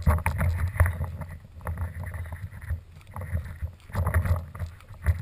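Footsteps crunching through dry leaf litter and bark chips, in irregular thumps and rustles, with low rumbling buffeting on the action camera's microphone.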